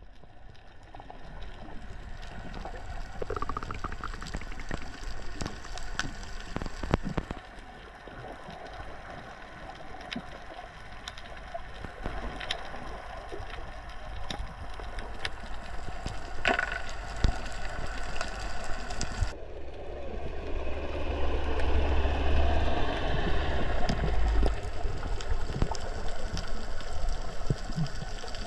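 Underwater ambience picked up by a camera beneath the surface: a muffled, steady watery hiss with scattered sharp clicks and crackles. A low rumble joins about two-thirds of the way through.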